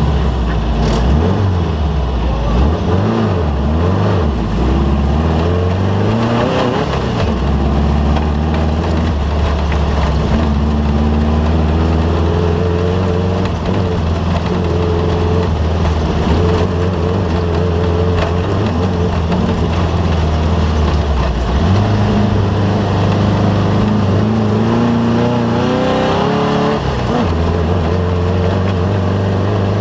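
Off-road race vehicle's engine running hard. Its revs rise and fall quickly several times in the first few seconds, then hold fairly steady, and step up again about two-thirds of the way through.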